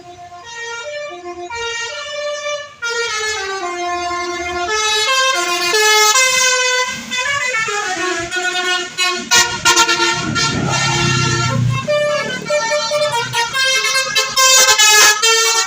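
A bus's multi-tone 'telolet' musical horn playing a melody of quick stepped notes. About ten seconds in, a low engine rumble rises under the horn.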